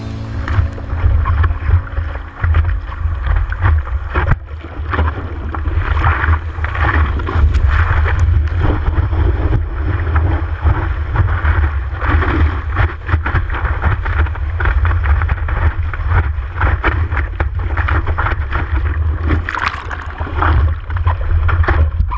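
Breaking white water splashing and sloshing over the nose of a surfboard and against a camera mounted on it, with a heavy, constant low rumble of water and wind buffeting the microphone.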